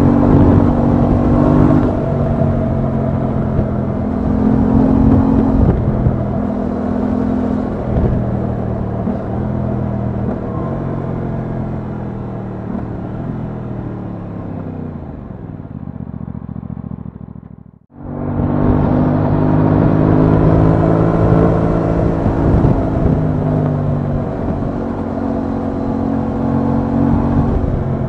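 Aprilia Tuono 660's parallel-twin engine heard on board while riding, with wind rush. The engine pulls through the gears, its pitch stepping down at each change. From about halfway it slows, the pitch falling over several seconds. The sound breaks off abruptly for an instant, then the engine is pulling hard again.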